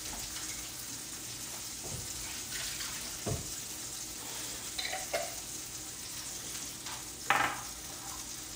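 Food frying in butter in a pan, with a steady sizzling hiss. A few light knocks and clinks from kitchen utensils sound over it.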